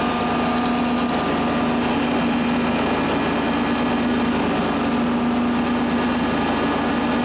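Vacuum excavator running steadily while its digging wand sucks soil out of a hole: a constant hum with an even rushing noise over it.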